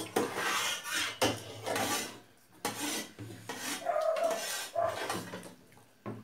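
Eating at a table: spoons scraping and mixing rice on steel plates, a series of rasping scrapes, most of them in the first three seconds.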